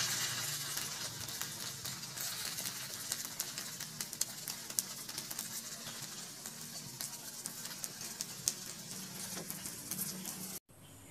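Egg frying in hot oil in a wok: a steady sizzle with scattered light clicks of a metal spoon against the pan. It cuts off suddenly near the end.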